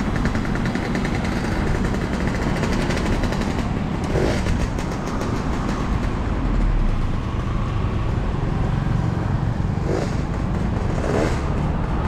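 Steady street noise with motor traffic running, and a few brief faint sounds near the middle and end.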